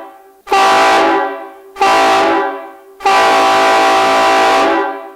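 Kaos three-trumpet train horn, fed by a 200 psi compressor and air tank, blasting loudly: a previous blast fades out at the start, then two short blasts a little over a second apart, then a longer one of nearly two seconds. Each blast is a steady chord of several tones.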